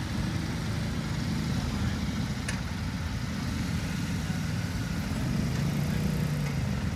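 Several motorcycle engines idling together in a steady low rumble. One engine picks up a little about five and a half seconds in.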